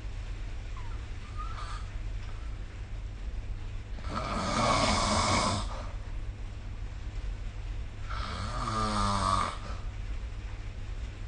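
A sleeping person snoring: two snores about four seconds apart, each lasting about a second and a half, the second with a pitched tone that falls. A steady low hum lies underneath.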